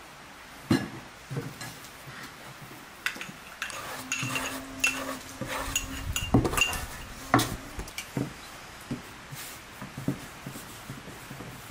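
Clatter of food preparation: scattered clinks and knocks of crockery, a large metal basin and a spoon against a cut-glass bowl, with a heavier knock about six seconds in as dough is tipped out of the basin onto the table.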